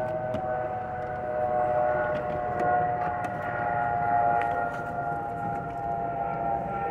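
Distant siren: a sustained chord of several steady tones, held with little change in pitch, with faint clicks over it.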